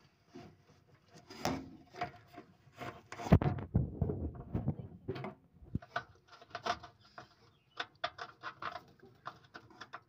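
A metal worm-gear hose clamp being tightened by hand around a plastic washing machine drain pipe: irregular small clicks, scrapes and rubbing, with a louder knock about three seconds in.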